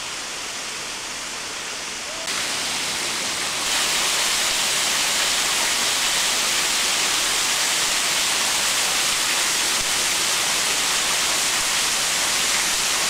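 Thin waterfall pouring off a rock ledge and splashing into a shallow pool: a steady hissing rush that gets louder about two seconds in and again near four seconds.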